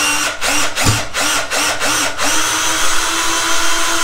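Cordless drill driving a 3-inch wood screw into a wooden beam: a motor whine under load that pulses about four times a second for the first two seconds, then runs steady.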